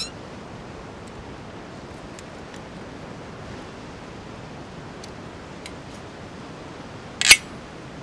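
Agawa Canyon folding bow saw being unfolded and assembled: a click at the start, a few light clicks, then one sharp metallic snap a little after seven seconds in as the frame locks open. A steady rushing-water hiss runs underneath.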